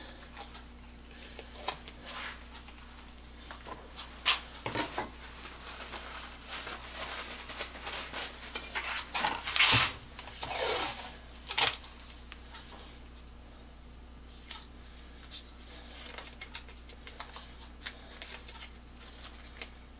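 Hand-handling noise on a wooden workbench: scattered clicks and knocks as tools and small objects are picked up and set down, with a louder rasping stretch about halfway through and a sharp knock just after it.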